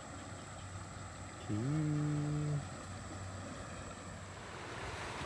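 A cow mooing once, about a second and a half in: one call of about a second that slides up at the start and then holds. A steady rush of flowing water runs underneath and grows a little louder near the end.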